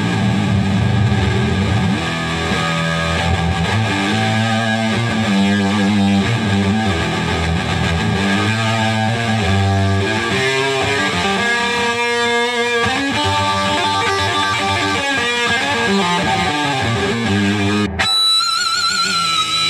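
Dean Razorback electric guitar played through an amplifier with heavy distortion: a run of riffs and chords, then near the end a sudden break and one high note held with wide vibrato.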